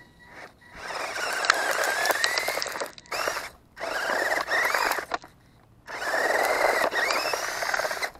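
The small electric drive motor and gearbox of a 1/24-scale GP Toys S609 RC 4x4 whining in three bursts of throttle. The pitch rises and falls in each burst as the truck crawls over loose dirt.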